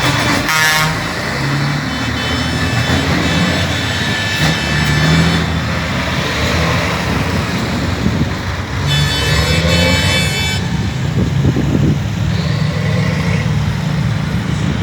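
Heavy trucks' diesel engines running loud and steady, with a truck air horn blowing briefly at the start and again for about a second and a half about nine seconds in.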